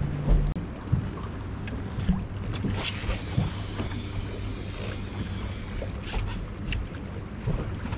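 Boat's outboard motor running steadily at a low, even pitch, with a few short knocks and wind over the water.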